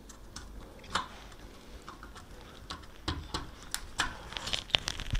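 Small plastic clicks and taps as a DDR3 memory stick is worked down into a motherboard's DIMM slot, a tight squeeze against a tower CPU cooler. The clicks are sparse at first, with one sharper click about a second in, and come thick and fast from about three seconds in.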